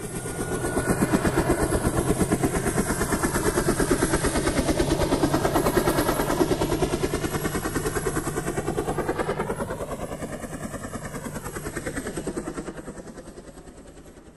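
Helicopter rotor chopping steadily overhead, swelling over the first second or two. Its tone sweeps slowly as it passes, and it fades toward the end.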